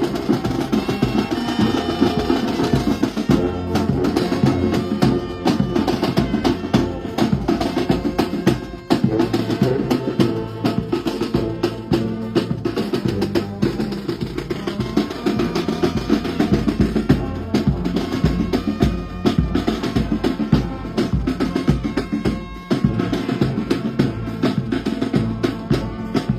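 Brass band playing: horns holding a melody over busy snare and bass drums.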